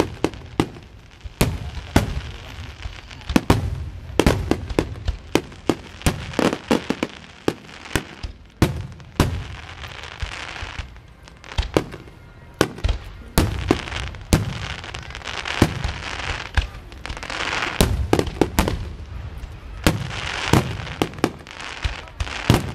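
Fireworks going off in rapid, irregular succession: many sharp bangs with stretches of dense crackling between them.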